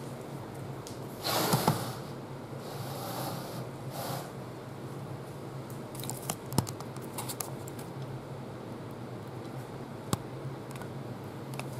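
A laminate flooring plank being slid and shifted on a miter saw's table to line it up with the blade: a brief scrape about a second and a half in, softer scraping after it, and a few light clicks and knocks, with a sharper knock near the end. The saw is not running.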